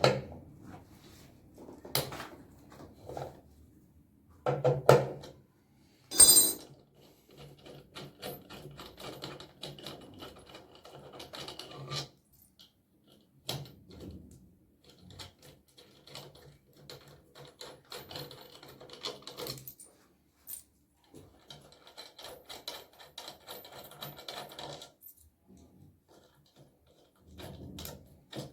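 Hand tools and metal parts being handled during a repair: scattered clicks, knocks and rattling. One sharp metallic clink rings out about six seconds in.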